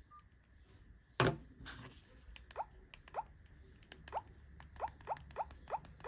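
A sharp knock about a second in, then light plastic keypad clicks from a Nokia 3310 handset being navigated through its menus, with short rising chirps repeating about twice a second.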